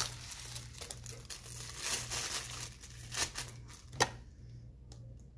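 Plastic bubble wrap crinkling and rustling as it is pulled off a camera lens, with a single sharp knock about four seconds in, after which the crinkling stops.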